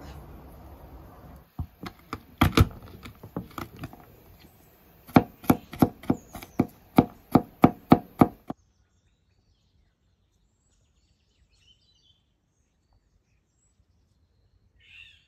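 Kitchen knife chopping on a wooden cutting board: a few scattered strikes, then a steady run of about three chops a second mincing garlic cloves, which stops suddenly about halfway through. Then near silence, with a faint bird chirp near the end.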